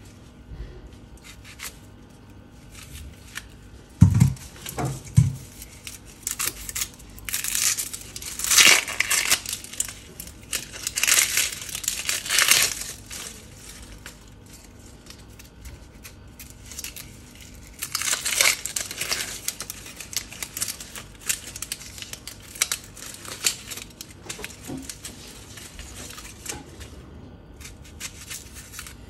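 Papery crinkling and tearing in several irregular bursts as onions are handled and cut, with two dull knocks about four and five seconds in.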